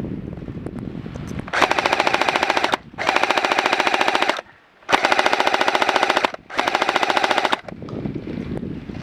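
Airsoft gun firing on full auto in four long bursts of rapid, evenly spaced shots, with short pauses between bursts.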